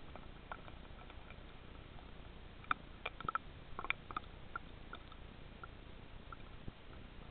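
Faint underwater ambience picked up by a submerged camera: a low hiss with scattered sharp clicks and short pips, clustered a few seconds in.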